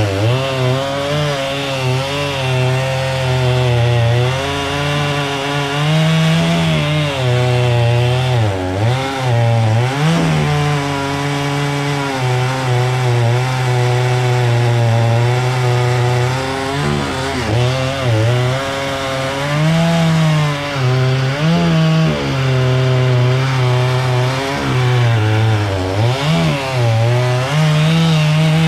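Chainsaw running at high speed while cutting wood, its engine note sagging under the load of the cut and picking back up again and again, with several deep dips.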